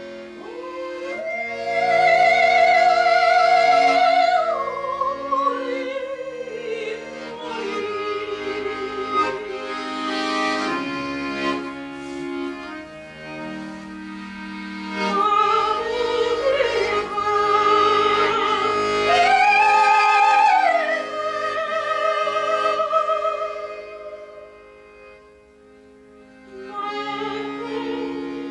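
Solo accordion playing long held melody notes with a fast wavering tremolo over sustained chords. It softens sharply near the end, then swells again.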